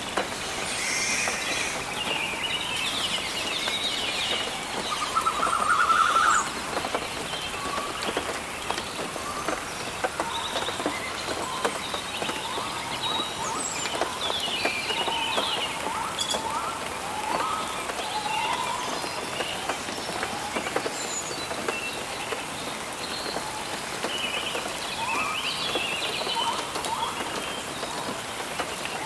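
Steady rain with many fine drop ticks, and birds chirping and trilling throughout. One bird holds a steady note for about a second and a half, around five seconds in.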